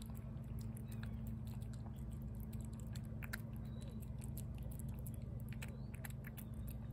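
Tabby cat eating wet cat food in gravy from a plate: irregular soft chewing and licking clicks, over a steady low hum.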